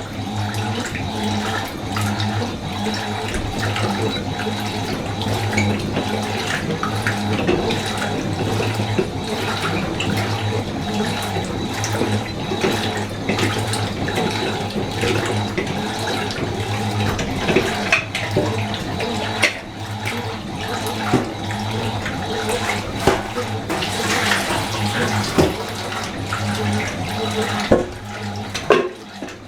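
Fisher & Paykel washing machine filling with water: a steady rush of water running into the tub, with a low steady hum under it.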